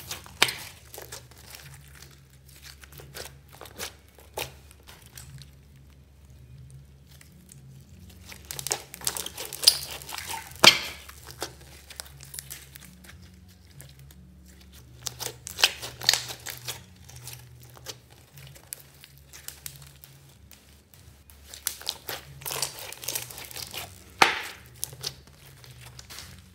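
Pink slime with beads and glitter mixed in, squished and pressed by hand: wet, sticky crackling and popping in bursts every few seconds, quieter between.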